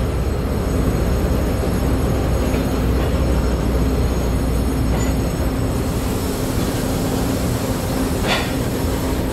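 Loaded ballast hopper wagons of a freight train rolling steadily past on the rails, with the steady drone of the train's diesel-electric locomotives underneath. A brief squeal comes about eight seconds in.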